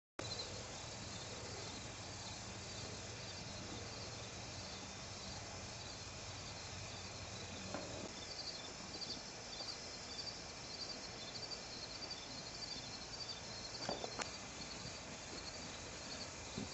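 Crickets chirping in a steady, pulsing chorus, with a low hum underneath for the first half. Two brief faint sounds come about eight and fourteen seconds in.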